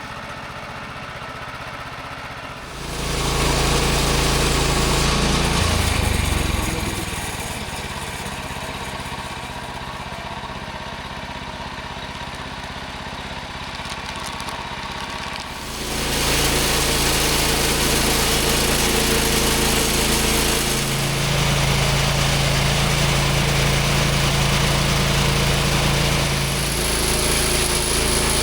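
Small gas engine of a portable sawmill running, revved up about three seconds in, easing back to a lower speed a few seconds later, and running up to high speed again past the halfway point.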